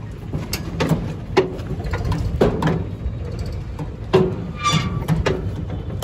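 Irregular metallic clicks and knocks, roughly two a second, each with a short ring, from the flywheel and drive of a New Holland square baler being turned by hand, over a steady low rumble. A brief high squeak comes about three-quarters of the way in.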